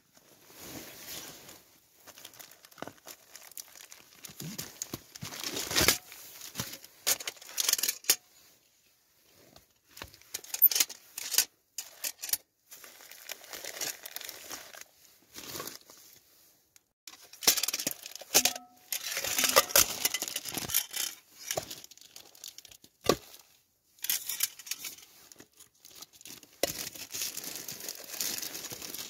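Plastic bag crinkling and rustling in bursts as a Trangia stove set is unwrapped and unpacked, with sharp clicks of the strap buckle and the aluminium parts now and then.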